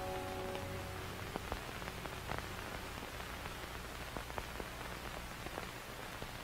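Steady hiss with scattered faint crackling clicks, while the last held notes of the music die away in the first second.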